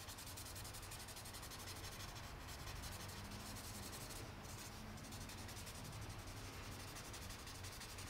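Faint, steady scratching of a pencil on drawing paper as it lays down shading.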